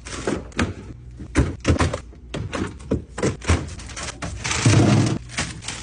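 Containers and bottles being set down and knocked against refrigerator shelves while a fridge is reorganized: a quick, irregular run of clicks and thunks. Near the end there is a longer sliding scrape.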